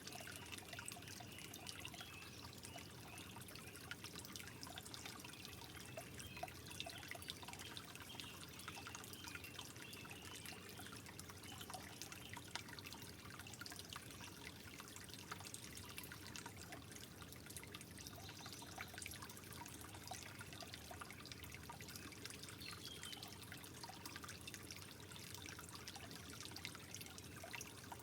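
Soft water trickling steadily, with many small drips and plinks scattered through it.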